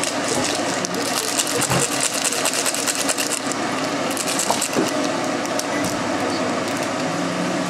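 Crinkling and tearing of plastic seasoning sachets and foil lids as cup ramyeon is prepared, a dense run of small crackles and rustles over a steady low hum.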